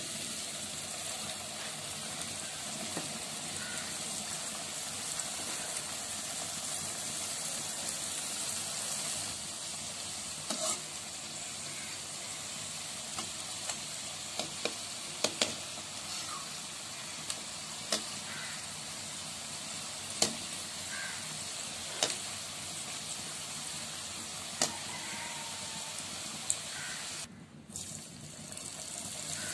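Chicken-filled wheat-flour pastries deep-frying in hot oil in a pan: a steady sizzle, with occasional sharp clicks and pops. The sizzle drops away briefly near the end.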